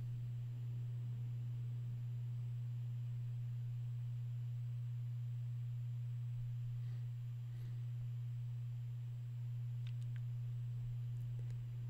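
A steady low-pitched hum, one unchanging tone with nothing else over it.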